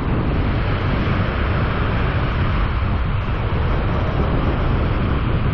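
Steady wind rumble on the microphone over surf washing in.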